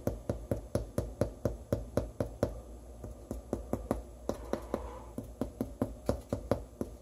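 Fingertip rapidly tapping the bottom crust of a baked sourdough loaf, about four or five taps a second, each a soft, hollow, thudding tap: the sign that the loaf is baked through.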